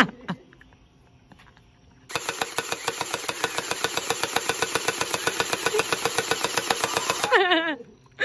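Anstoy electric gel ball blaster firing on full auto: a fast, even chatter of shots from its motor-driven gearbox, starting about two seconds in and lasting about five seconds.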